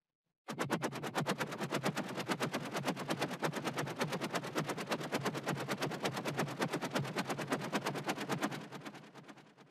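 SHR Tones software tone generator playing a noisy pulse train: a fast, even rattle of sharp clicks that starts suddenly about half a second in and fades out near the end.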